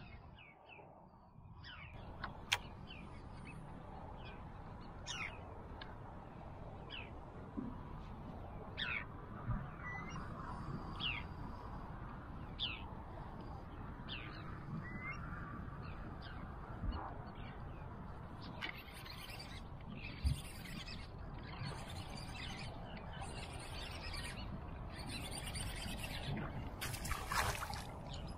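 Short, sharply falling bird chirps repeated every second or two over a steady hiss of wind and water.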